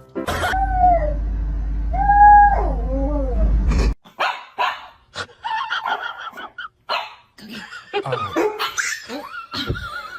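A dog whining and yipping: two long, wavering whines over a steady low hum, then, after an abrupt change about four seconds in, a run of short yips, barks and whimpers.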